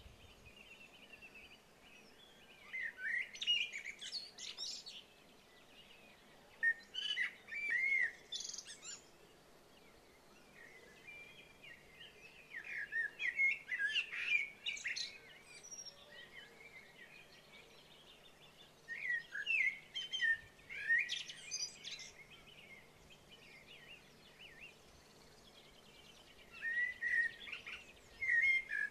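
A songbird singing warbling phrases of one to four seconds, about six of them with pauses between, over faint steady background hiss.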